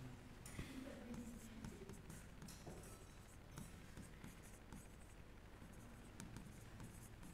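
Faint scratching of writing with many light ticks and taps, over quiet room tone.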